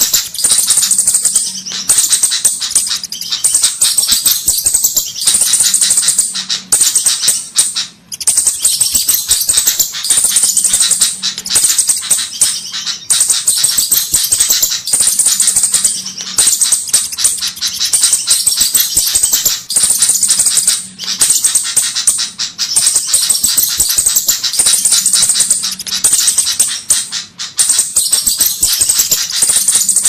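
Looped flowerpecker lure-call recording: dense, rapid, high-pitched ticking calls in stretches of about a second, repeating over and over with brief breaks. It is the kind of recording played to draw flowerpeckers in.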